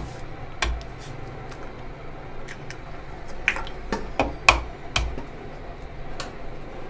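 Eggs being cracked against a bowl and dropped onto shredded cabbage: a scattering of sharp taps and knocks, the loudest a little past the middle.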